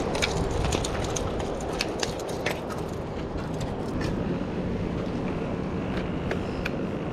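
Steady wind and surf noise, with scattered light clicks and taps, most of them in the first few seconds, as a freshly caught sheepshead is handled beside a fishing cart.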